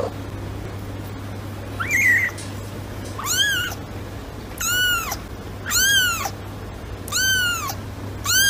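A kitten meowing in high, thin calls, about six times starting about two seconds in; most calls rise and then fall in pitch.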